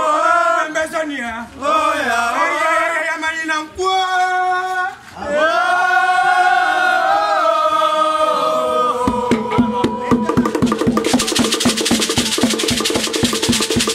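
Traditional dance music: one voice chanting in a wavering, gliding line, then about nine seconds in percussion enters with quick even strikes, about four to five a second, under held tones, and a hissing rattle joins from about eleven seconds in.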